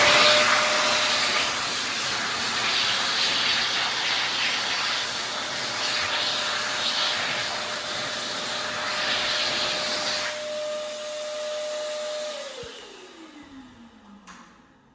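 Alpine Willow hand dryer running: a loud rush of air over a steady motor whine. The air eases about ten seconds in. A couple of seconds later the motor cuts off and its whine falls in pitch as it spins down.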